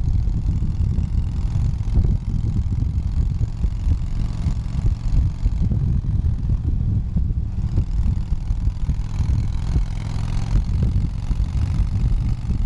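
Motorcycle engine running while being ridden, heard from the rider's seat: a steady low engine rumble with wind noise on the microphone, the hiss swelling a little around ten seconds in.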